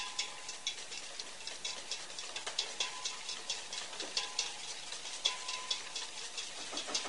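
Wire whisk beating egg yolks and sugar in a stainless steel bowl until pale, its wires clicking rapidly and evenly against the metal.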